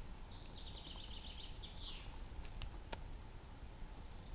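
Metal buckles and straps of a canvas rucksack being handled, with a couple of sharp clicks about two and a half to three seconds in. A small bird's fast trilled song, ending in a quick rise and fall, sounds in the background in the first two seconds.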